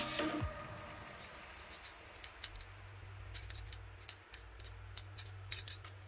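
Background music fades out right at the start. Then come faint scattered scratching and clicking from a hand working on the painted skateboard deck, over a low steady hum.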